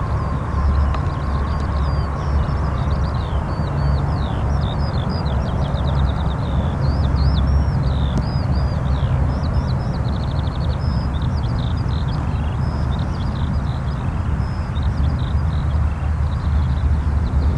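Antonov An-12BP's four Ivchenko AI-20 turboprop engines at take-off power, a steady deep rumble as the freighter rolls away down the runway; a faint high whine fades out in the first couple of seconds. Small birds chirp and warble continuously over it.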